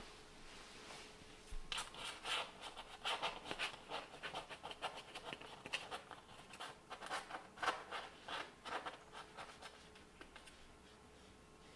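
A kitten's claws and paws catching and scraping on a thick towel as it clambers over the edge of the bed, a run of short rustling scratches that starts about two seconds in and dies away near the end.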